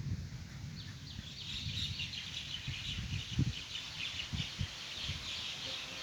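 Small birds chirping in rapid, overlapping series of short falling chirps, joined by a few dull low thumps.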